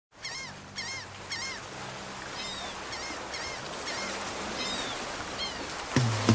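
A bird calling outdoors: short, arched chirps, one at a time or in quick pairs, repeated every half second or so, over a low steady hum. Music comes in loudly near the end.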